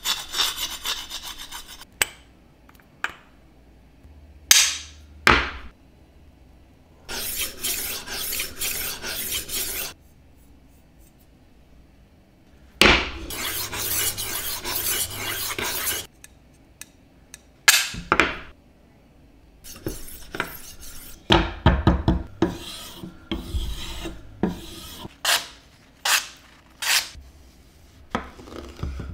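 A kitchen knife's edge scrapes across a stone, dulling it. Then a rolling knife sharpener's disc grinds along the blade in two steady rasping stretches of about three seconds each. A run of short, sharp knife strokes and taps on a wooden cutting board follows.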